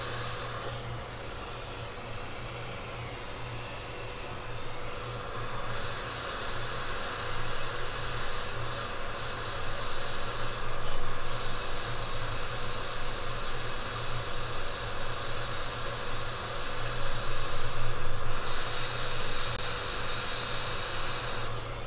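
Steady rushing air with a low hum from soldering-bench air equipment, swelling a little at times.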